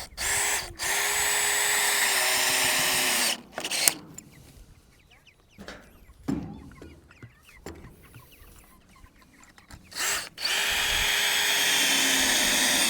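Power drill driving screws into a wooden board, two runs of about three seconds each with a steady motor whine that sags slightly in pitch as each screw seats.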